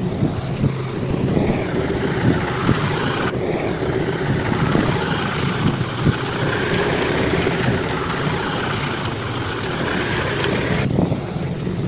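Bulldozer's diesel engine running steadily, with scattered short clanks.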